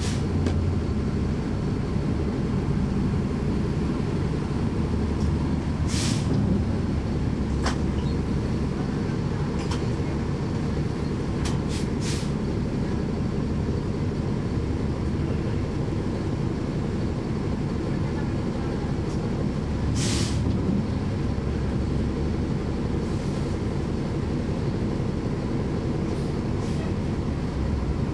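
Caterpillar C13 ACERT diesel engine of a NABI 40-SFW transit bus, heard from the rear seats inside the cabin, running steadily with road noise. A few short hisses cut in, the clearest about six and twenty seconds in.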